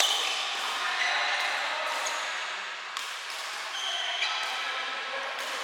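Heavy rain on the hall roof makes a steady hiss under a badminton rally: sharp racket strikes on the shuttlecock about once a second, with short squeaks from shoes on the court.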